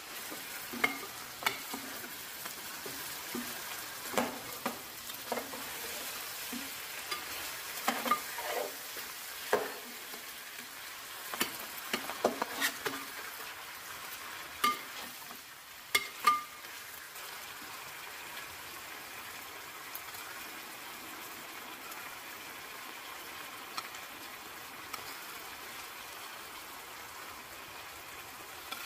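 Meat and tomatoes sizzling in hot oil in a metal pot, with a metal spoon clanking and scraping against the pot as they are stirred through roughly the first half; after that only the steady sizzle.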